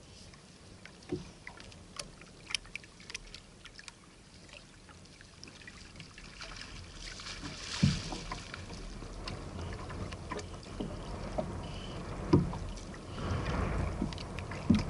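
Water slapping against the hull of a small fibreglass flats skiff, with scattered light knocks on the deck. About eight seconds in comes a louder thump and a rush of splashing, and the water noise grows louder toward the end.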